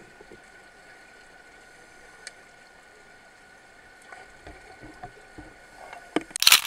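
Underwater swimming-pool ambience: a steady hiss with a faint steady tone, scattered bubbling pops from about four seconds in, and a loud rush of bubbles near the end, typical of a scuba diver's regulator exhaust.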